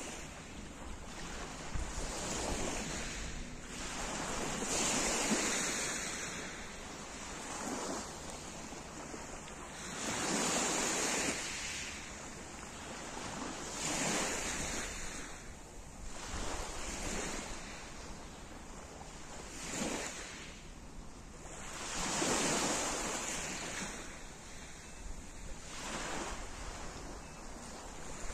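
Small waves surging and washing up a pebble beach, each one swelling and falling back every few seconds.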